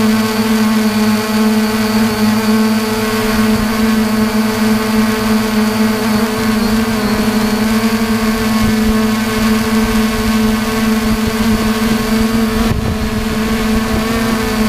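3DR Iris+ quadcopter's electric motors and propellers humming steadily, heard from the camera mounted on the drone itself: a loud, even buzz with one strong pitch and a stack of higher overtones.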